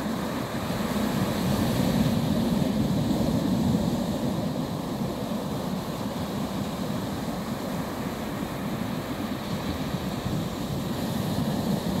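Surf on a sandy beach: waves breaking offshore and washing up the sand as a steady low rush, swelling louder about a second in and easing after about four seconds.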